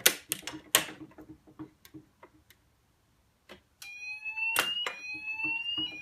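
A few sharp clicks, then, about four seconds in, a fire alarm sounder on a Ziton ZP3 addressable system goes off. Its electronic tone rises slowly over about a second and then repeats, signalling an activated fire alarm.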